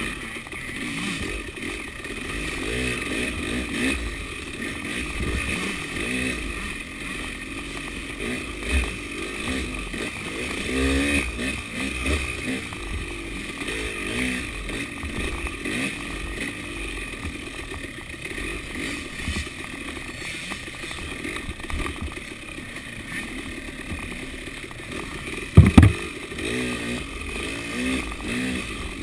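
KTM 300 two-stroke dirt bike engine running under the rider's throttle, revs rising and falling in short bursts. Two sharp, loud knocks come close together near the end.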